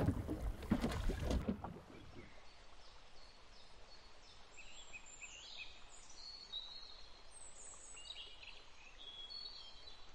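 Water splashing and sloshing against a boat's side as a released bonita swims off, cutting out about a second and a half in. After that, faint outdoor background with scattered high chirping bird calls.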